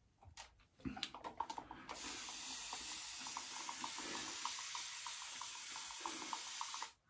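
Tap water running into a sink. It comes on about two seconds in after a few handling clicks, runs steadily, and is shut off abruptly just before the end.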